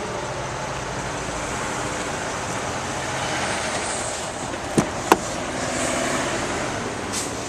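A pickup's driver door unlatching and swinging open: two sharp clicks about five seconds in, over a steady vehicle rumble.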